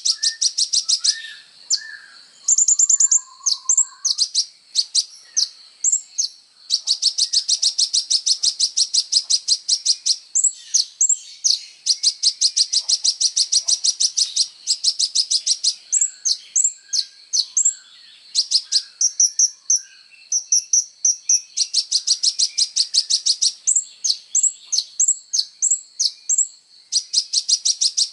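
A sunbird (kolibri ninja) singing continuously in high-pitched song: long, fast trills of rapidly repeated notes alternating with runs of separate short, sweeping chirps.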